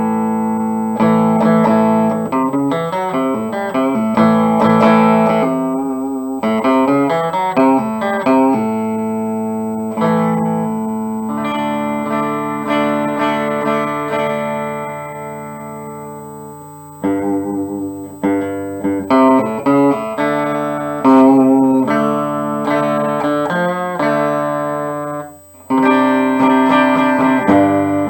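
Electric guitar, a G&L Legacy Tribute with a Seymour Duncan Little '59 mini humbucker in the bridge position, played through the amp's clean channel: chords are strummed and left to ring. One chord fades out slowly around the middle, and the playing stops briefly near the end.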